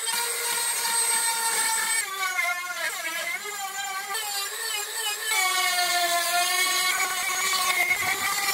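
Handheld rotary tool whining as its carving burr cuts a spiral groove into apple burl wood. The pitch dips and recovers as the burr bites in.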